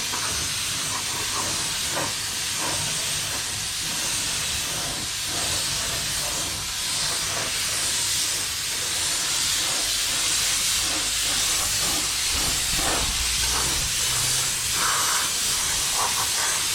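Clear lacquer being sprayed onto a repaired car bumper: a steady hiss of atomised paint.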